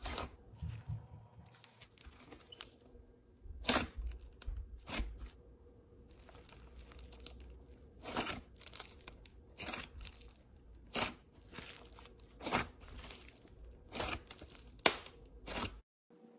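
Slime with clay mixed in being squeezed and kneaded by hand: a soft rustling broken by irregular sharp pops and crackles, about a dozen of them loud. The sound cuts off abruptly just before the end.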